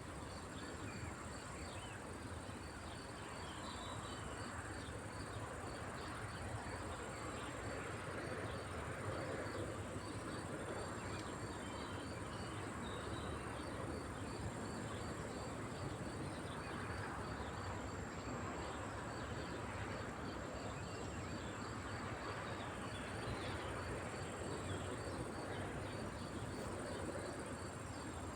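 Insects chirping steadily: a cricket-like chirp repeating evenly at about two to three pulses a second, over a thin, continuous high-pitched insect buzz and a steady background hiss.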